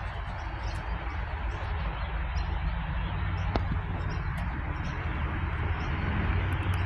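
Adelaide Metro 4000 class electric train approaching, a low rumble slowly growing louder, with birds chirping in the background.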